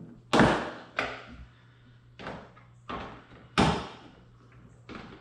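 A series of sharp knocks on plastic, about six in five seconds with two much louder than the rest: the plastic rear diffuser being pressed and tapped home onto its push-in rivets under the bumper.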